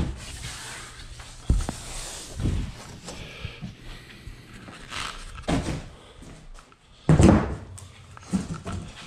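Cardboard shipping box and plastic-wrapped treadmill parts being handled: irregular knocks, scrapes and rustles, with the loudest thump about seven seconds in.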